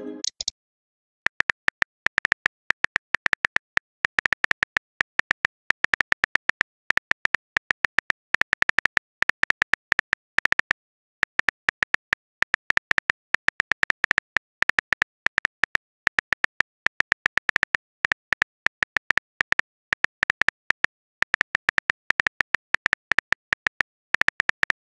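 Simulated smartphone keyboard tap clicks in quick, irregular runs with short pauses, as a text message is typed. A pitched message chime dies away about half a second in.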